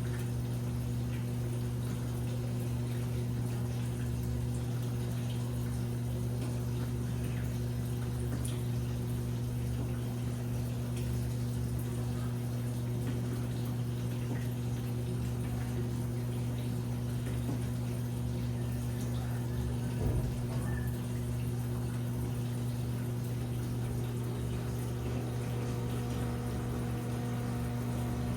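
Washing machine running with a steady low hum and the sound of water moving inside, with one brief knock about twenty seconds in.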